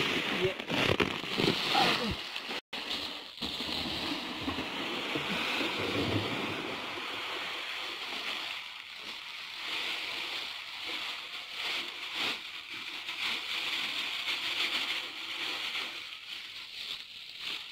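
Fertilizer poured from a sack into a blue plastic drum: a steady rushing hiss that tapers off near the end.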